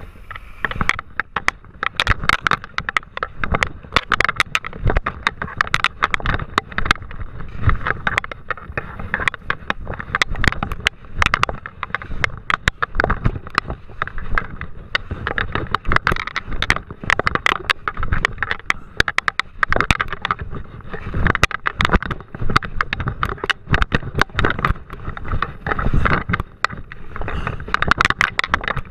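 Skis scraping and skidding down a mogul run, a continuous rough hiss of snow with a low rumble. Many sharp clicks and knocks run through it.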